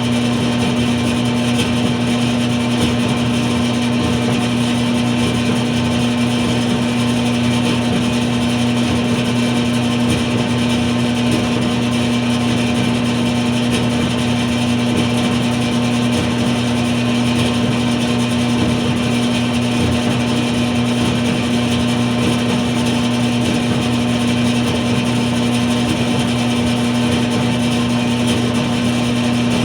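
A dryer running steadily: an even, unchanging drone with a constant low hum.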